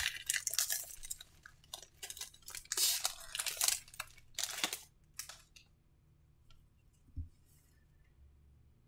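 Foil trading-card pack wrapper being torn open and crinkled by hand, a busy crackling rustle for about five seconds. It then goes quiet but for a few soft taps and one light knock as the cards are handled.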